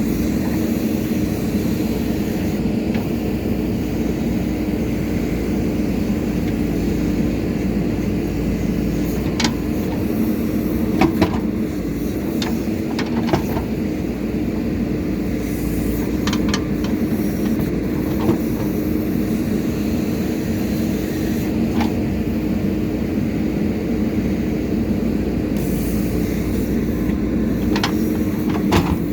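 Diesel engine of a JCB 3DX Super backhoe loader running steadily under working load, with occasional sharp metallic clanks from the digging gear.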